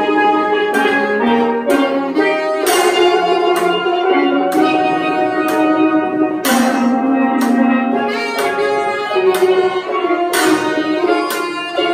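Steel band ensemble playing a tune together, the struck pan notes ringing on.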